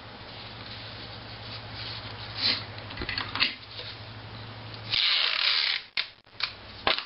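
Sheets of paper being handled, folded and slid across a wooden table: rustling with light taps, and a louder rustle lasting under a second about five seconds in.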